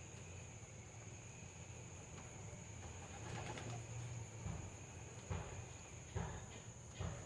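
Young racing pigeons cooing, with four sharp thumps about a second apart in the second half.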